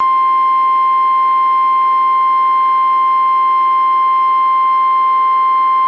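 NOAA Weather Radio warning alarm tone, the 1050 Hz attention signal that precedes a warning broadcast: one loud, steady tone over faint hiss from the radio receiver. It cuts off suddenly near the end.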